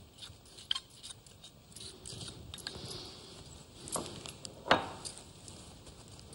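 A few light clinks and taps of a small bowl and a metal spoon against a ceramic plate. The sharpest click comes about two-thirds of the way through.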